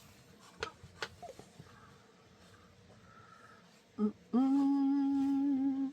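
A woman humming a long "hmm" held on one steady note near the end, as if thinking. Before it, a few faint taps.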